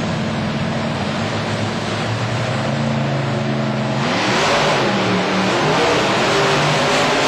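Monster truck engines running and revving. The engine pitch creeps up at first, then after a sudden change about four seconds in the revs climb.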